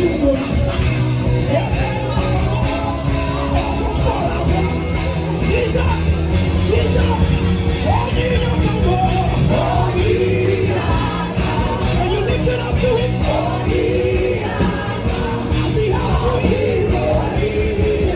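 Live amplified worship music: a sung melody over a band with a steady bass line and a regular drum beat.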